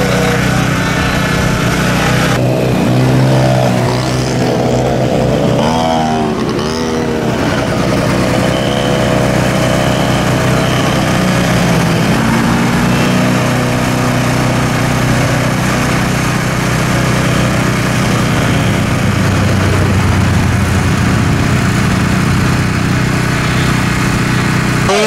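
Several small 50cc mini ATV engines running at race pace. Their pitch rises and falls as the riders throttle on and off, several engines overlapping.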